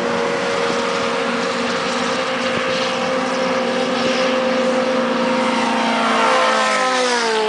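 Suzuki GSX-R inline-four sportbike engine running at steady high revs at speed, under heavy wind rush. Near the end the engine note falls as the revs drop.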